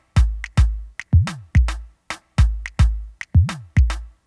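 Electronic music: a drum-machine beat of deep kick drums and short clicky hits at a quick, even pace, with a low synth tone that dips and rises twice.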